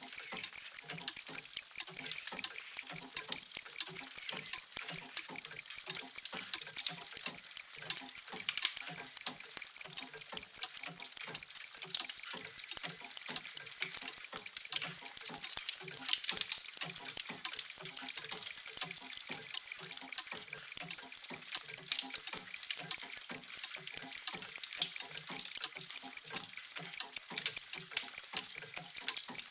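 Many vintage mechanical clocks ticking at once: a dense, steady clatter of overlapping sharp ticks with softer, lower tocks underneath.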